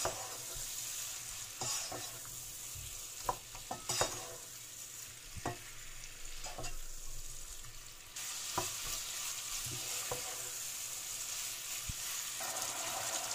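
Shrimp and spices frying in oil in a pot, a steady sizzling hiss, while a wooden spoon stirs them and knocks against the pot now and then. The sizzle grows a little louder about eight seconds in.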